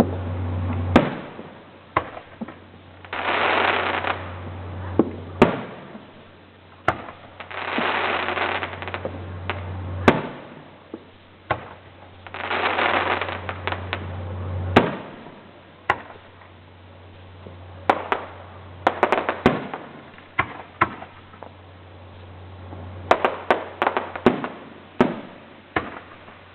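Fireworks going off: a series of sharp bangs, some single and some in quick clusters, with three stretches of noisy hiss, each about a second long, in the first half.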